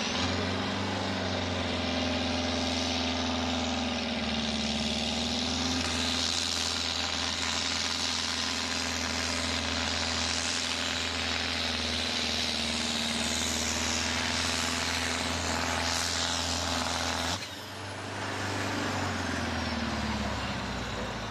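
Farm tractor's diesel engine at full throttle under heavy load, dragging a tractor-pulling weight-transfer sled. About 17 seconds in the engine cuts back sharply as the pull ends, then runs on at lower revs, fading.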